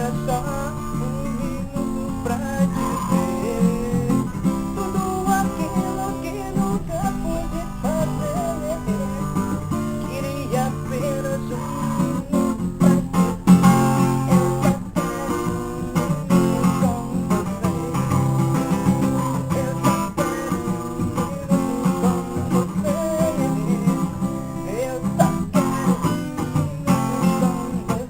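Acoustic guitar (violão) being strummed and picked in a steady rhythm.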